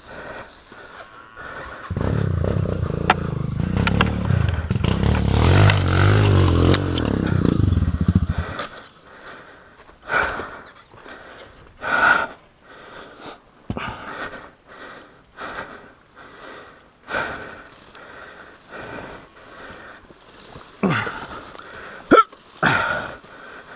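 Trail motorcycle's single-cylinder engine revving hard, its pitch rising and falling, for about six seconds, then falling silent. After that a person breathes heavily in short gasps every second or two.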